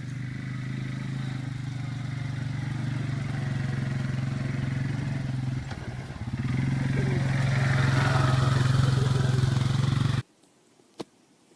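A motor or engine running steadily with a low hum, dipping briefly about six seconds in, then cutting off abruptly near the end, followed by a single sharp click.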